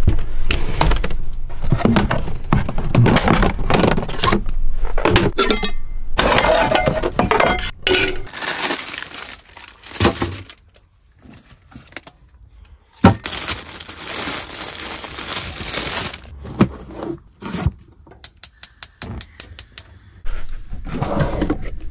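Kitchen things clattering and knocking as food, jars and utensils are handled and set down, then near the end a quick run of clicks from a gas hob's spark igniter as a burner is lit.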